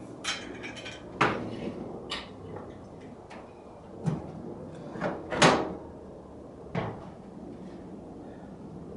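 Irregular clunks and knocks, about seven in all, the loudest about five and a half seconds in, as a lathe hanging from a cherry picker's straps is worked out of a pickup bed.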